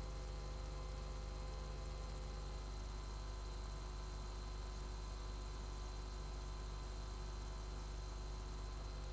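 Steady electrical mains hum with an even hiss and a few constant high tones, unchanging throughout.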